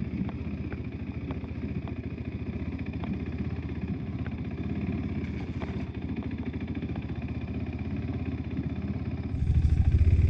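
A KTM 390 Adventure's single-cylinder engine runs steadily while riding, with a few light clicks of clatter. About nine seconds in, the engine becomes suddenly much louder and deeper.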